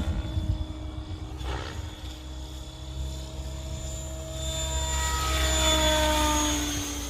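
Mikado LOGO 690 electric RC helicopter flying: a steady whine from its motor and rotor that grows louder later on, its pitch sliding slightly down as it passes.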